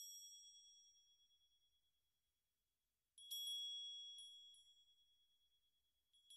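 Faint, high-pitched chime struck once and ringing out slowly over about two seconds. About three seconds in it is struck again several times in quick succession, then twice more. Near the end it sounds twice again.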